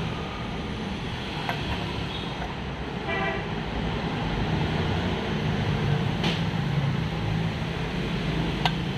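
Steady low mechanical hum with a short horn-like toot about three seconds in. Later come two sharp metallic taps: a hammer striking a socket set against the pilot bearing to drive it into the crankshaft end at the flywheel centre.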